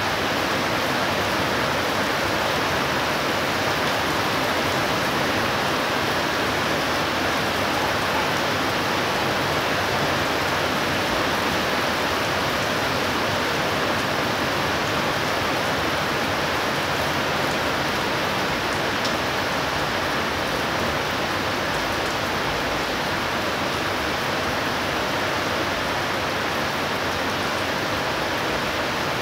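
Heavy thunderstorm downpour: rain falling steadily as a dense, even hiss with no let-up.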